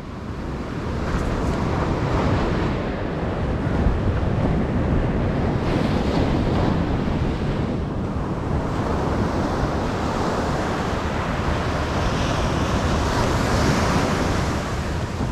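Steady wind buffeting the microphone, over surf washing on a sandy beach.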